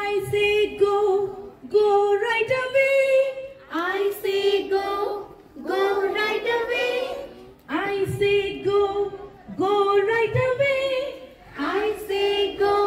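A woman singing a simple children's rhyme into a microphone, with young children singing along, in short sung phrases with brief breaks between them, about every two seconds.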